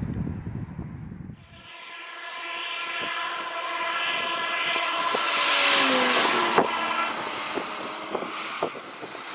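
Turboprop engines of an ATR72 airliner running with a whine of several steady tones over a hiss. The sound grows louder to a peak about six seconds in, with one tone falling in pitch as the aircraft passes. A short stretch of low wind rumble comes before it.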